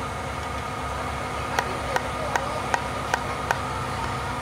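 Aerial ladder fire truck's engine and hydraulics running steadily with a constant whine as the ladder is raised. About six sharp clicks, roughly three a second, sound in the middle.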